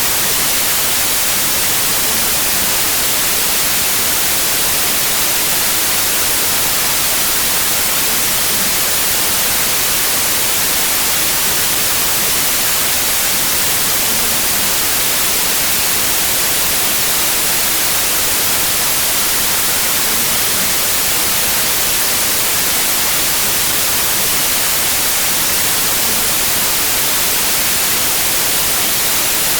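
Loud, steady static hiss like an untuned television's snow: an even white noise, brighter toward the treble, with no tone in it and no change in level.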